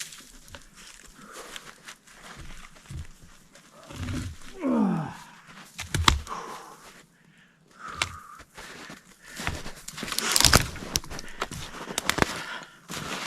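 A man grunting and groaning with effort while carrying logs by hand, with one long falling groan about five seconds in. Footsteps and brush crunch around him, and sharp knocks of wood come twice, the loudest near the end.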